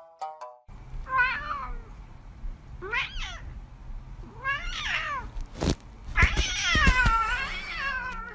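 Cat meowing: three short meows about two seconds apart, then a long, drawn-out, wavering meow near the end. A sharp knock comes just before the long meow. The first half second holds the tail of plucked background music.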